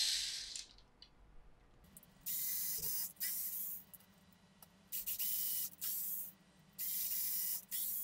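ARROWMAX cordless electric screwdriver spinning an M3 tap to cut threads into the holes of a 3D-printed plastic shell. It runs in five short whirring bursts, each under a second, with pauses between.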